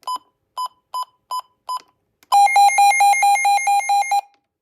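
Midland WR120 weather alert radio: five short beeps, then its alert test, a loud, rapidly pulsing alarm tone at about five pulses a second that lasts about two seconds and cuts off.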